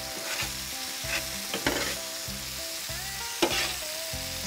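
Diced duck and bacon sizzling hard on a hot flat-top griddle, with a few short scrapes of a spatula turning the meat.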